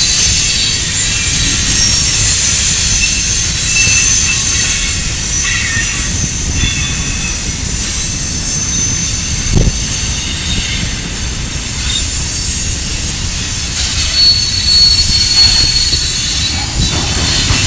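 Freight cars of a manifest train rolling past: a steady rumble of steel wheels on rail, with high-pitched wheel squeal coming and going, and a single knock about ten seconds in.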